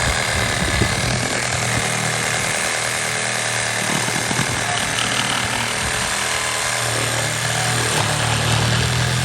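Reciprocating saw (Sawzall) running steadily with a loud, continuous buzz.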